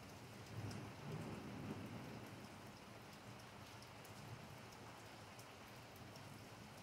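Steady, faint rain falling on pavement and roofs, with scattered drips ticking. A low rumble swells briefly from about half a second to two seconds in.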